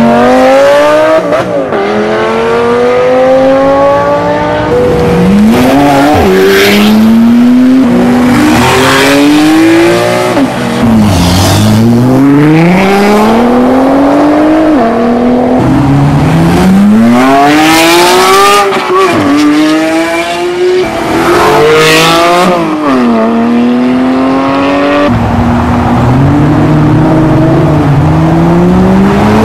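Supercars accelerating hard one after another: an orange Lamborghini Gallardo Spyder's V10, then a Nissan GT-R's twin-turbo V6, then a McLaren's twin-turbo V8. Each engine revs up through the gears, its pitch climbing, dropping at each upshift and climbing again, about a dozen times in all.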